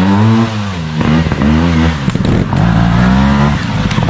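Trials motorcycle engine revving in several short rising-and-falling bursts, the throttle blipped as the rider works the bike up a climb.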